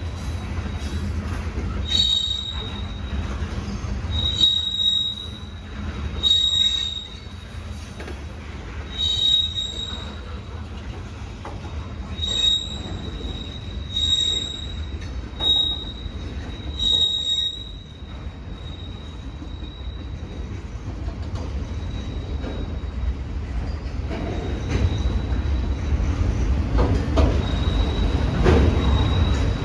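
Freight train cars rolling past with a high-pitched wheel-flange squeal that swells in pulses every couple of seconds, then fades to a faint steady screech after about 17 seconds. A low rumble of the rolling cars runs underneath and grows louder toward the end.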